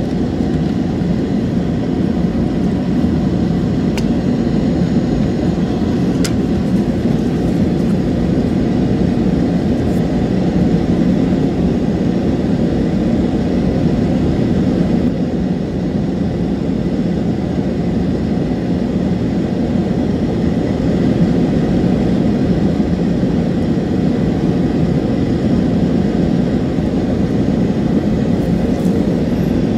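A steady low drone of machine-like noise that holds at one level throughout, with a few faint clicks in the first ten seconds.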